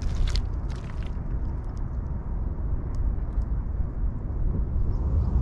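Wind buffeting the microphone: a steady, gusting low rumble. A few brief scratchy rustles come in the first second.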